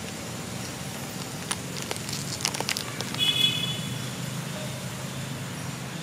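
A newborn long-tailed macaque gives a short, high-pitched squeal about three seconds in, just after a few sharp clicks and scuffles. A steady low hum runs underneath.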